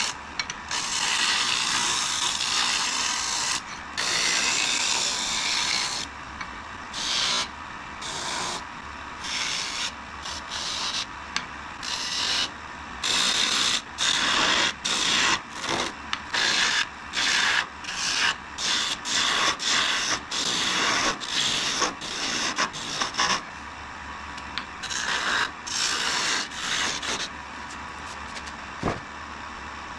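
A turning tool cutting a spinning glued-up wood blank on a lathe: a rough, hissing scrape in many short passes that start and stop, ending a few seconds before the end. Between the cuts and after them the lathe runs on with a steady hum.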